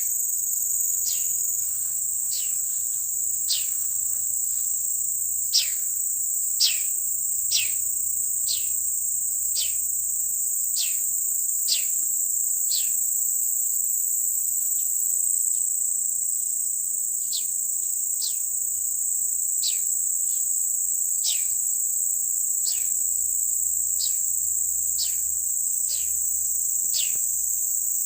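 Steady, shrill chorus of crickets, over which an unseen animal in the bush gives short whistled calls falling steeply in pitch, about one a second, pausing for a few seconds midway.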